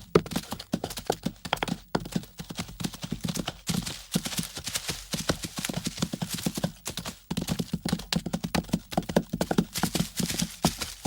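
Zebras' hooves: a dense, irregular clatter of hoofbeats from a moving herd.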